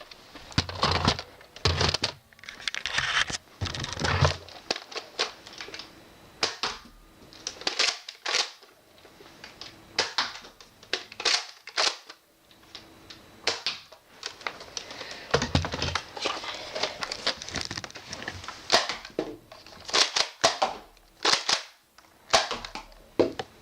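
Two spring-powered Nerf Rival foam-ball blasters being primed and fired, three shots each: a run of sharp, irregular clacks and thwacks, with a few longer rattling handling noises between them.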